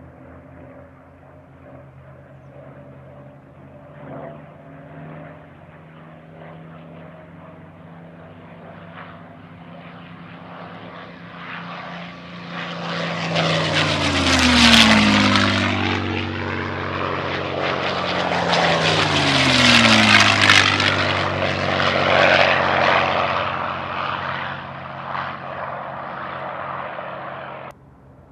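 P-51 Mustang fighters' Packard Merlin V-12 engines approaching and flying past low, growing steadily louder. The engine note drops sharply in pitch twice, about five seconds apart, as each pass goes by. The level falls suddenly near the end.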